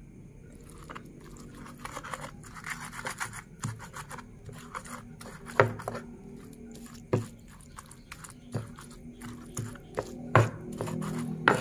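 Stone pestle crushing and grinding chillies, tomatoes and shallots into sambal in a cobek mortar: wet squashing and scraping with a string of small clicks, and several sharp stone knocks in the second half, about a second and a half apart.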